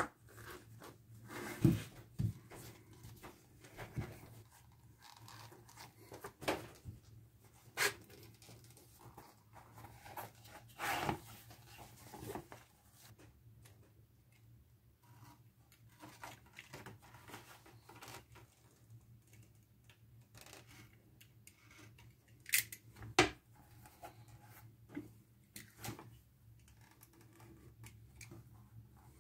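Leather tapadero pieces being handled, laced and cut with a utility knife on a wooden workbench: scattered rustles and scrapes with a few sharp knocks, the loudest a couple of seconds in and twice more near the last third, over a low steady hum.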